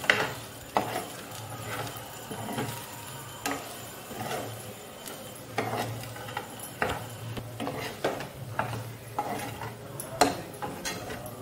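A metal spoon stirring prawn masala fry in a non-stick frying pan: irregular scrapes and knocks of metal on the pan. The loudest knocks come at the start and about ten seconds in.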